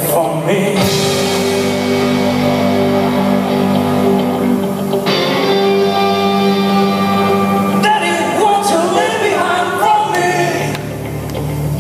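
Live rock band playing: electric guitar and bass guitar with a male lead vocal, the music echoing in a large hall. Sustained chords shift about five and eight seconds in.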